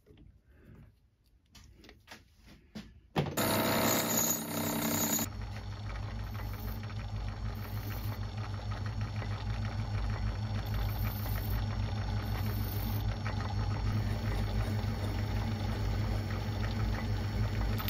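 A few faint handling clicks, then a metal lathe starts about three seconds in, louder for the first couple of seconds, and then runs steadily with a pulsing hum while a hand file is held against the spinning brass cylinder cover.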